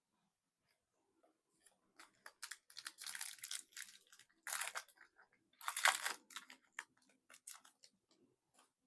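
Foil booster-pack wrapper being torn open and crinkled by hand: a run of crackly tearing, then two louder rips, then a few small rustles.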